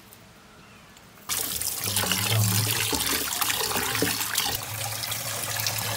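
Kitchen tap running hard into a steel bowl of raw beef pieces, the water splashing as hands wash the meat. The water comes on suddenly about a second in.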